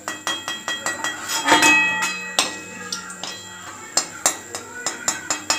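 Steel spatula knocking and scraping against a metal wok and a steel plate: a string of sharp metallic clinks that ring briefly, as fried pastries are lifted out of the oil.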